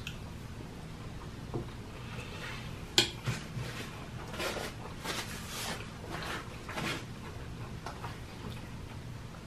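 Close-miked eating sounds: a sharp click of cutlery on a dish about three seconds in, then a run of chewing and mouth noises, over a steady low hum.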